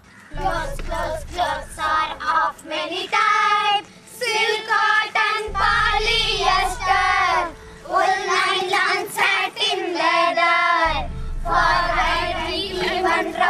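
A group of children singing together in short phrases, with brief breaks between lines.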